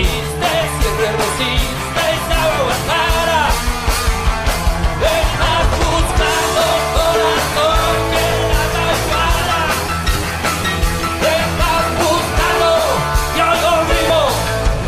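Rock song with a steady drumbeat under a sung vocal melody.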